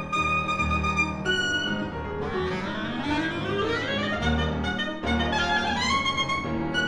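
Solo clarinet with piano accompaniment playing: held high clarinet notes, a fast upward run about two seconds in, over repeated low piano chords.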